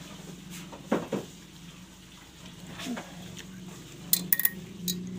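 Metal forks clinking sharply against a plate several times near the end, with a couple of dull knocks about a second in, over a steady low hum.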